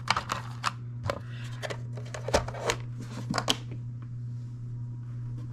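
Hands pushing power cables down into a plastic dry box and closing its lid: a quick run of small clicks and rustles of wire and plastic, thinning out after about three and a half seconds, over a steady low hum.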